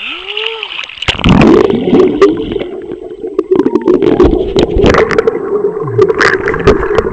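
Swimming-pool water heard by a camera microphone dunked under the surface. From about a second in, a loud muffled underwater rumble with gurgling and scattered sharp knocks and splashes.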